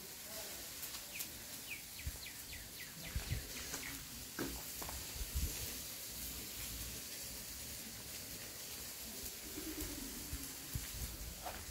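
Outdoor ambience with a bird calling: a quick run of short falling chirps in the first few seconds, over a steady hiss and scattered low thumps.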